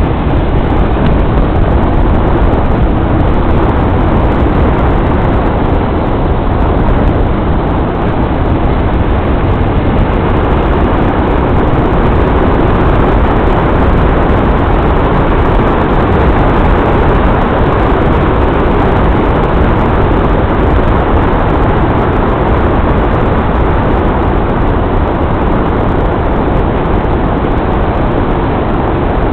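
Steady noise of a car driving along a road, a mix of engine, tyre and wind noise that holds level throughout.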